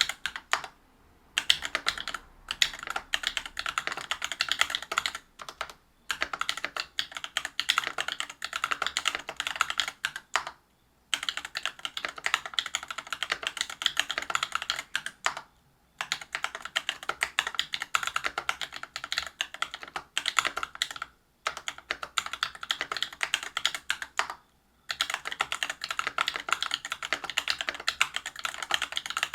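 Typing on a Whale 75 mechanical keyboard with stock, unlubricated Cobalt POM linear switches (63.5 g) in a brass plate under PBT keycaps: rapid keystrokes in runs of a few seconds, broken by brief pauses every four to five seconds.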